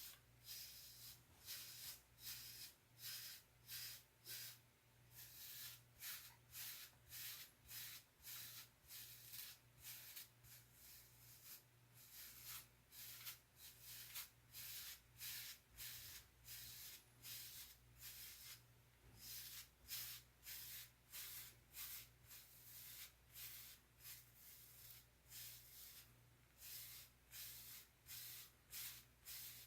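Wave brush bristles scratching through short, conditioner-coated hair in quick repeated strokes, about two a second, with a few brief pauses.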